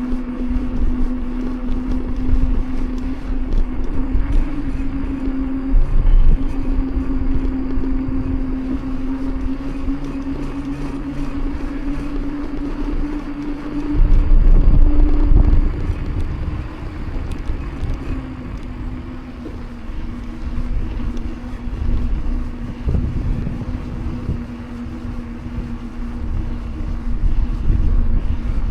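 Mountain bike tyres humming on pavement while riding: a steady tone that slowly rises in pitch, then drops off about halfway through as the speed changes. Wind rumbles on the microphone, loudest about halfway through.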